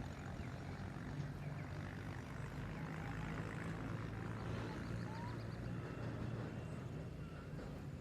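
Steady low motor drone that holds an even pitch throughout, with a few faint bird chirps over it.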